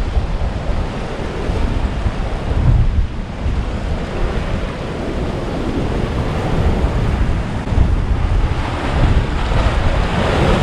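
Sea surf washing with strong wind buffeting the microphone in a heavy, uneven low rumble.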